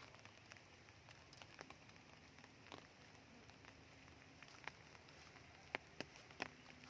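Scattered raindrops dripping after heavy rain: irregular soft ticks and taps over a faint steady hiss, with a few louder drops near the end.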